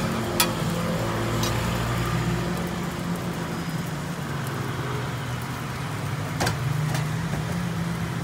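Steady low hum of nearby motor traffic, its pitch shifting as engines idle and pass, with a few sharp clicks.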